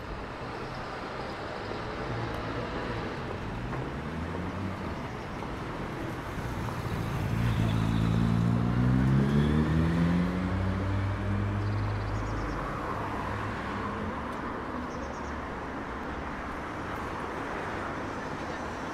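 Street traffic with a motor vehicle's engine rising in pitch as it accelerates past, loudest about seven to eleven seconds in, over a steady traffic rumble.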